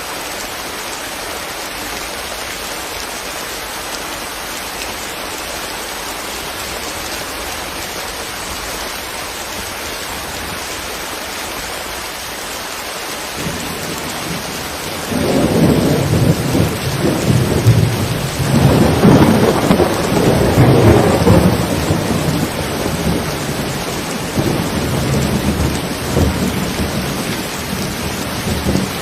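Steady rain falling, then about halfway through a long rolling rumble of thunder builds in, swells to its loudest a few seconds later and slowly dies away under the rain.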